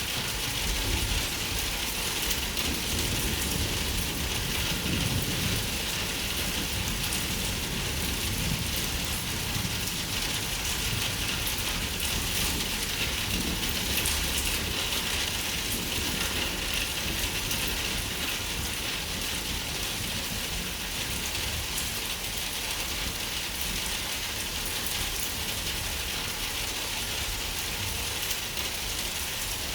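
Steady rain falling, an even hiss of many drops, with low thunder rumbling through the first several seconds.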